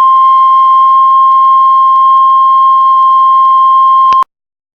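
Heart monitor flatline: a single unbroken beep tone held steady for about four seconds, then cut off sharply. It is the monitor's alarm that no heartbeat is being detected.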